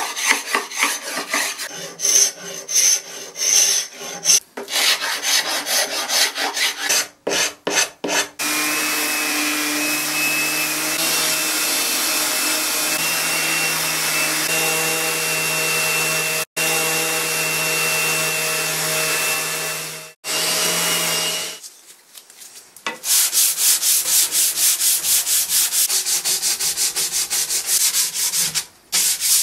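Hand scraper pulled along a wooden rail in short, irregular strokes, scraping off old finish. About eight seconds in, a random orbital sander with a shop-vacuum hose attached starts and runs steadily, stopping about twenty-one seconds in. After a short lull come fast, even back-and-forth strokes of hand sanding along the moulded edge, with sandpaper wrapped around a dowel.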